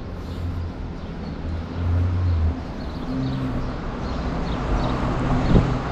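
Road traffic: a motor vehicle's engine running close by, a low hum whose pitch shifts as it goes, with a short knock near the end.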